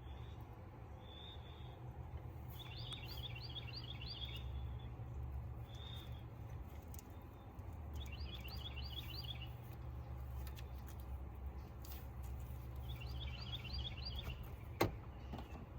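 A songbird singing a quick run of high chirps about every five seconds, with single short notes between, over a steady low outdoor rumble. A sharp click sounds near the end.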